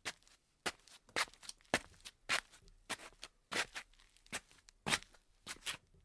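Slippers shuffling on a tile floor: scuffing footsteps at about two a second, some louder than others.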